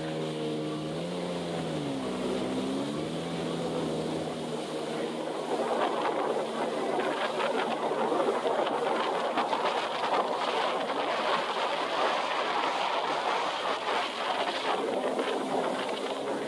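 Jet ski engine running. Its pitch dips and rises in the first few seconds, then a louder rushing of water and wind takes over from about five seconds in.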